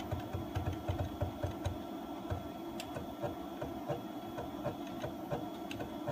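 A CNC-converted X2 mini mill's axis drive motors and leadscrews moving the table back and forth during a backlash-compensation test. It is a steady mechanical hum with faint ticks and irregular low thumps several times a second, most frequent in the first two seconds.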